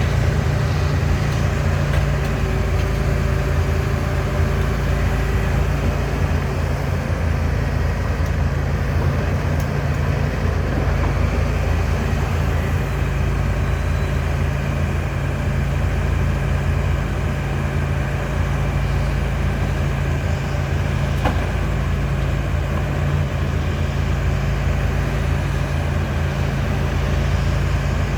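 John Deere 245G LC excavator's diesel engine running steadily with a constant low drone that holds the same pitch and level throughout.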